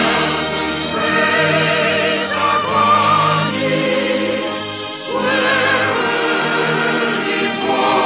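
Orchestra and choir performing operetta music, the singing voices with a wavering vibrato over sustained orchestral chords. The sound is dull, with no high treble, as on an old radio transcription.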